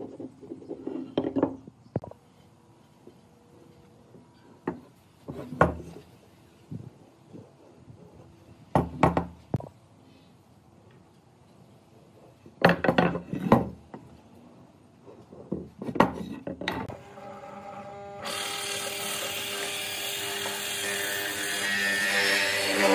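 Wooden workpieces being knocked and handled: a few loud, separate knocks and short clatters with pauses between them. About 18 seconds in, a loud steady noise starts and keeps going.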